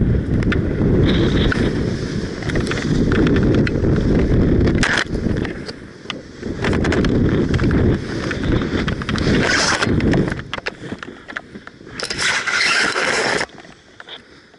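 Wind buffeting a helmet-mounted camera microphone during a paraglider's final descent in strong gusty wind, with scattered knocks. About a second and a half before the end a burst of scraping rustle comes as the pilot lands and the wing and lines come down on the launch mat, then the wind noise drops away suddenly.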